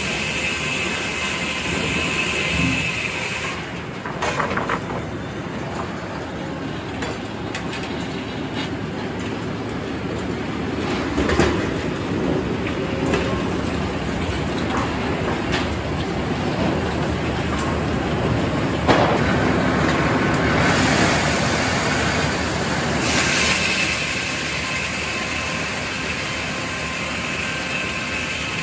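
Circular sawmill running: the headsaw blade spins with a steady high whine while the log carriage rolls along its track, with a few sharp clanks from the carriage and log-handling gear. Near the end the saw is cutting through a white oak log.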